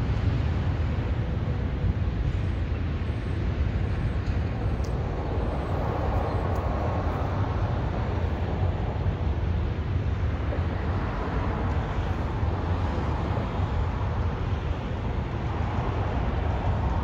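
Freight train cars rolling past: a steady low rumble of wheels on rail.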